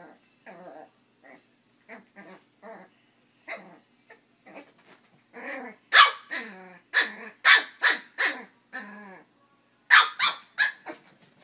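Papillon barking: soft yips and growls at first, then a quick run of about six loud, high, sharp barks past the middle and three more near the end.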